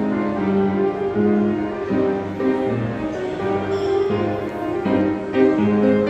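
Instrumental music with held notes that change every half second or so.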